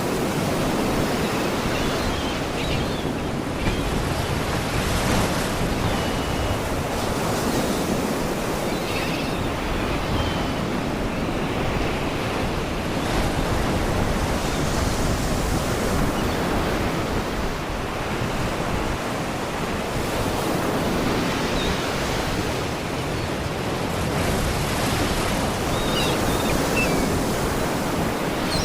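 Sea waves washing and breaking against rocks: a continuous surf rush that swells and eases. A few faint seagull cries come through now and then.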